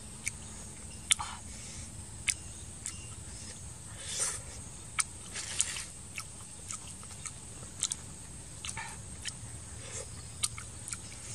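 A person eating with her fingers: irregular wet clicks and smacks of chewing and lips, with a few short, noisier bursts.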